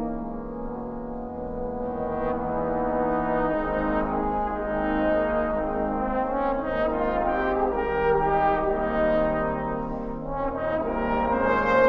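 Trombone choir playing slow, sustained chords, growing louder toward the end.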